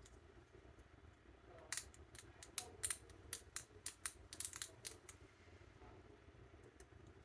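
A quick run of small, sharp clicks and snips over about three seconds, from hand tools working small plastic model-kit parts.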